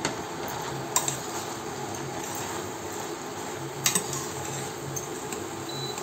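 Steel spoon clinking against the side of a pressure cooker as chopped bottle gourd and tomato pieces are stirred: a sharp clink at the start, another about a second in, and a quick pair near four seconds. A steady low hum runs underneath.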